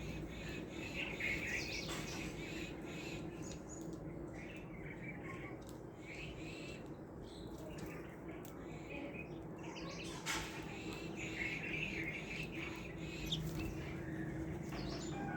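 Small birds chirping in short clusters, once near the start and again in the second half, over a continuous low background hum.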